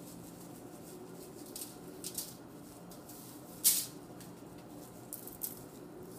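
Dry spice rub shaken from a glass jar in short bursts, the granules rattling in the jar and pattering onto the meat and foil, with one sharper rustle a little past halfway.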